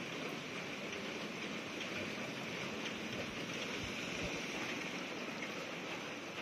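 Heavy rain pouring steadily, an even hiss of rain on plants, roofs and floodwater. A few brief low rumbles come about three to four seconds in.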